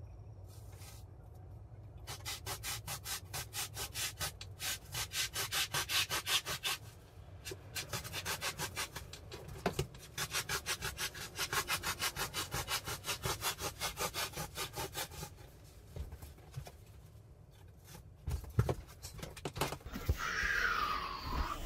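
High-density foam being cut by hand with quick back-and-forth sawing strokes, about four a second, in two long runs with a short pause between. Near the end come a few knocks and the rustle of the foam slab being handled.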